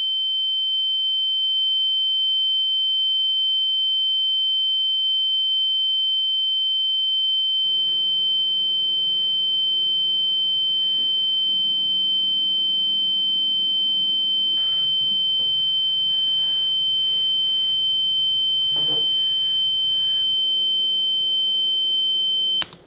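A single steady high-pitched electronic tone, held unbroken and cutting off suddenly near the end. From about a third of the way in, faint room noise with a few soft taps lies beneath it.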